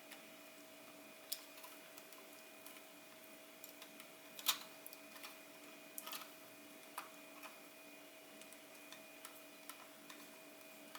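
Scattered small clicks and taps of plastic camera parts being handled as a replacement LCD panel is seated in a compact digital camera, the loudest about four and a half seconds in, over a faint steady hum.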